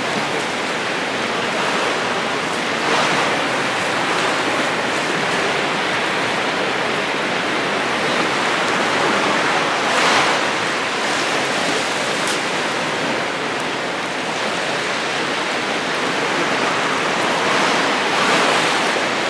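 Steady rushing water noise picked up by a camera underwater. It swells a little about three seconds in, around the middle and near the end.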